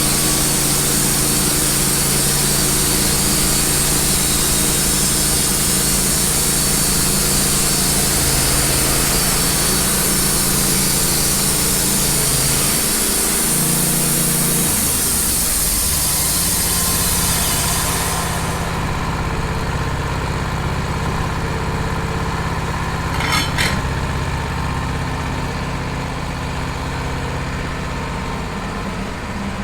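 Wood-Mizer LT15 band sawmill cutting through a cedar log: the engine runs steadily under the hissing blade. About two-thirds of the way through, the cutting noise stops suddenly and the engine runs on alone, with a brief rattle a few seconds later.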